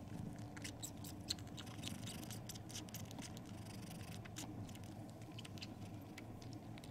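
Kitten suckling on an older cat's belly fur, making soft, quick, irregular wet smacking clicks. This is dry comfort-suckling on a cat that has no milk.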